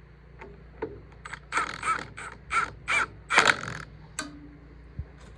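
A crow cawing: a run of about five harsh caws between about one and four seconds in, along with a few sharp clicks.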